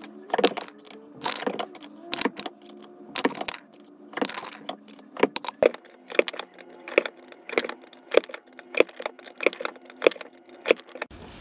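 Brass rifle cases clinking and clicking as they are handled and run up into the case-mouth expanding die of an RCBS single-stage reloading press: a rapid, irregular string of sharp metallic clicks over a faint steady hum.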